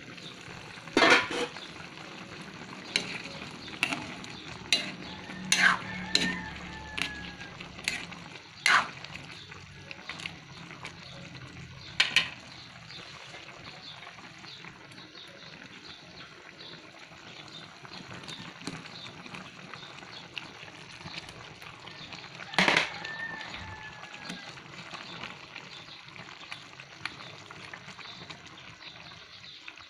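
Metal ladle and pot lid clanking and scraping against an aluminium pan while chicken adobo simmers, over a steady hiss from the bubbling sauce. A run of sharp clanks comes in the first ten seconds, then one loud clank about 23 seconds in.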